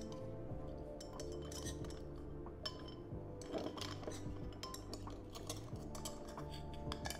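Scattered light clinks and taps of an aluminium screw-on lid knocking against a small glass jar as it is handled, over background music.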